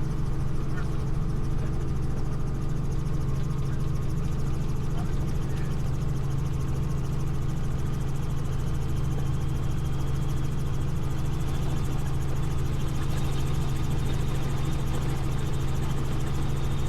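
Helicopter in flight heard from inside the cabin: a steady low drone of engine and rotor, with a faint high whine from about halfway.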